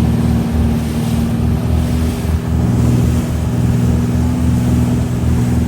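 Motorboat engine running steadily at speed, with a low, rhythmic throb.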